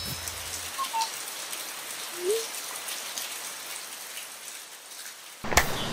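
Steady rain falling on wet pavement, an even hiss, with a couple of faint brief chirps early on and a sharp click near the end.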